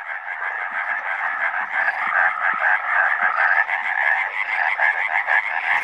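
Chorus of many frogs calling at night, dense overlapping rapid pulsed calls: males calling for mates.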